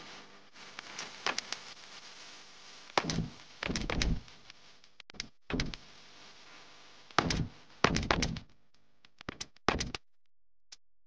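Irregular knocks, thumps and short rustles of craft materials being handled and set down on a tabletop, in several clusters, the loudest around three to four seconds in and again near eight seconds.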